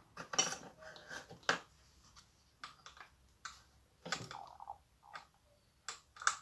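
Hands handling a Homelite petrol hedge trimmer on a workbench: scattered clicks and light knocks of its plastic housing and parts, a dozen or so short sharp sounds with a small clatter about four seconds in.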